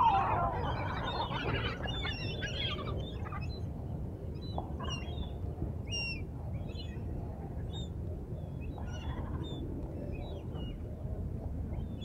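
Gulls calling in short squawks around a flock of gulls and pigeons being fed, with a flurry of flapping wings and calls in the first couple of seconds as birds scramble for food, over a steady low background rumble.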